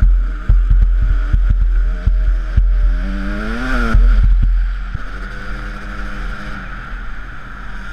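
125 cc two-stroke enduro motorcycle engine running under throttle, its pitch rising and then falling about three to four seconds in and holding steadier afterwards. Heavy wind buffeting on the microphone, with a run of knocks and thumps as the bike jolts over rough ground in the first half.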